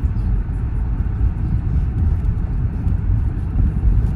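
Steady low rumble of a moving car's road noise.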